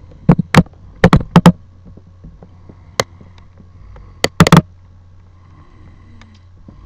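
Kisses smacked close to the microphone: about a dozen sharp, loud lip smacks in quick clusters over the first five seconds.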